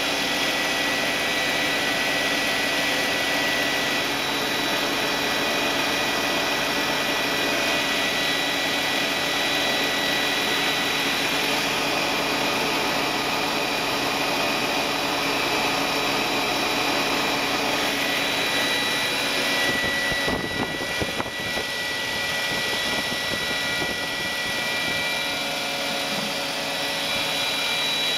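Mercedes M104 2.8-litre straight-six idling with the electric secondary air injection pump running as a steady whining drone, still on about two and a half minutes after a cold start, well past the roughly 90 seconds it should run. This is the over-long SAI run the owner has been unable to trace.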